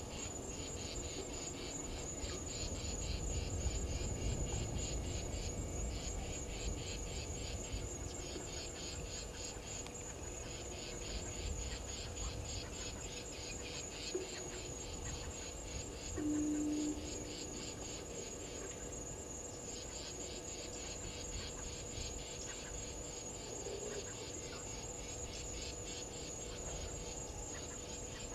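Steady chorus of crickets and other insects, a fast pulsing high trill that runs without a break, over a faint low rumble. About sixteen seconds in, a short steady low tone sounds for under a second and is the loudest thing heard.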